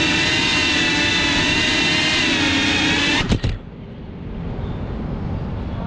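FPV quadcopter's motors whining steadily, heard from the GoPro mounted on the drone. About three seconds in, a few sharp knocks as the drone comes down on the ground, and the motor whine cuts off.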